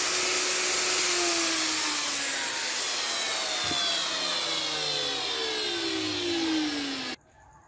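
High-speed wood-carving machine motor whining, then winding down with its pitch falling steadily for several seconds. The sound cuts off suddenly near the end.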